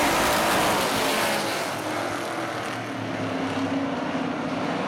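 A pack of street stock race cars running at racing speed, their engines blending into one loud, continuous sound. It is loudest in the first second or so as the cars pass, then a little quieter as they move on into the turn.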